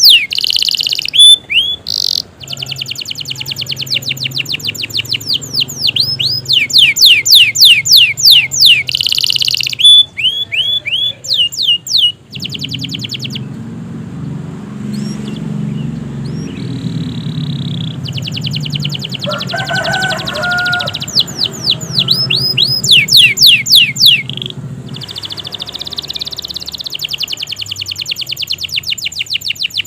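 Domestic canary singing a long, continuous song: rapid trains of high, sweeping notes and rolls, easing off to a quieter passage partway through before the fast trills pick up again.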